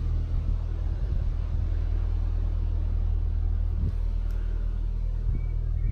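Low, steady rumble of engines running somewhere nearby, an even drone that holds without change.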